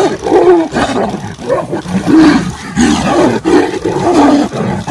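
Two tigers fighting, giving loud growls and roars one after another, several a second.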